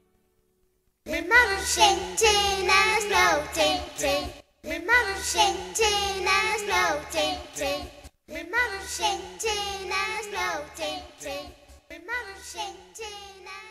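Song with singing over a steady bass line, starting about a second in, with short breaks roughly every four seconds.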